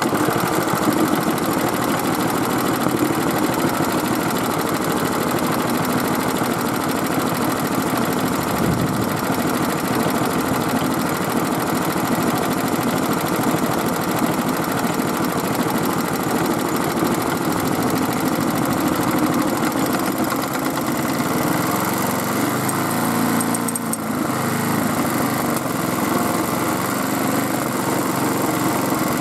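Small Robin single-cylinder gasoline engine running steadily just after a recoil start, running well after its repair. Its note changes about two-thirds of the way through, with a brief dip near the end.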